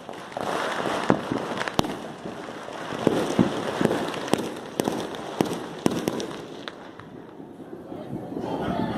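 New Year's fireworks going off around the neighbourhood: many sharp bangs and pops at irregular intervals over a continuous crackle, thinning out after about seven seconds.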